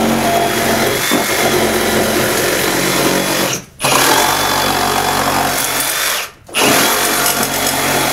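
Milwaukee FUEL cordless reciprocating saw (Sawzall) cutting through wooden framing lumber, running steadily and loud, stopping briefly twice, near the middle and again about two-thirds of the way in.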